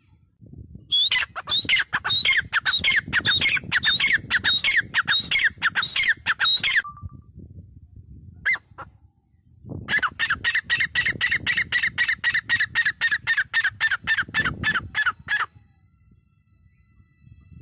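Grey francolin calling: two long bouts of loud, rapid repeated notes, several a second, separated by a short pause with one brief note in it.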